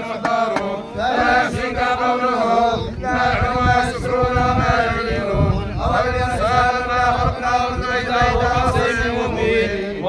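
A crowd of men chanting Islamic funeral prayers together at a burial, in long held notes.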